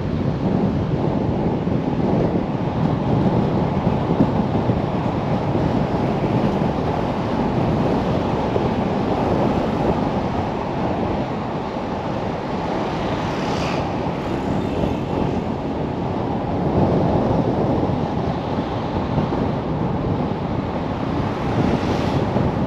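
Steady wind buffeting on the microphone, a dense low rumble with no pauses.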